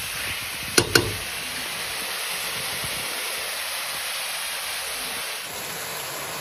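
Goat liver, onions and fat frying in oil in a metal kadai: a steady sizzle, with two sharp clicks of a metal spatula against the pan about a second in.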